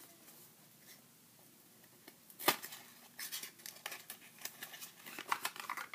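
A thin paperboard product box being opened by hand. A single sharp snap comes about two and a half seconds in, then a run of scratchy cardboard rustling and scraping as the flap is worked open.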